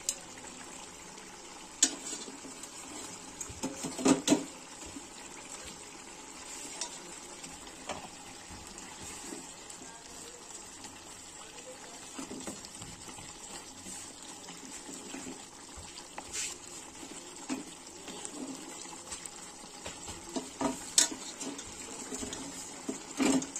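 Spatula stirring fish pieces in a kadai of boiling curry, with a steady low hiss of the simmering liquid and a few sharp clinks against the pan: about 2 s in, a cluster around 4 s, and two near the end.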